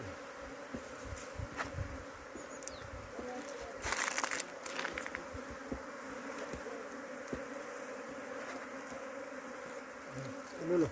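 A swarm of honeybees buzzing in a steady hum, with a short rustle of handling about four seconds in.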